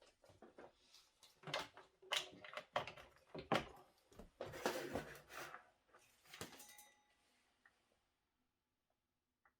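Irregular handling sounds: scattered clicks, knocks and short rustles of objects being moved about, dying away to near silence in the last couple of seconds.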